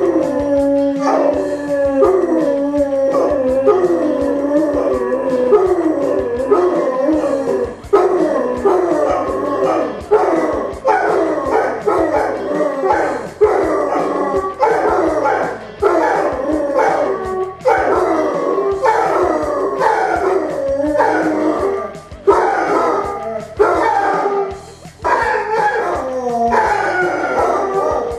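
Basset hound howling in a long string of howls, about one a second, each sliding down in pitch.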